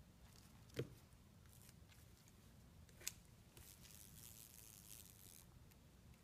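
Near silence broken by two short taps about two seconds apart, then a faint scratchy rustle: a West Highland terrier puppy's paws and claws tapping and sliding on a hardwood floor as it paws at a fly.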